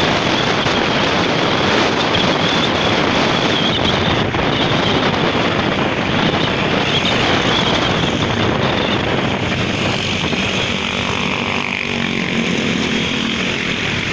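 Riding on a motorcycle: wind rushing over the microphone, with the bike's engine and road noise underneath. The rush eases in the last few seconds and a lower steady engine tone comes through.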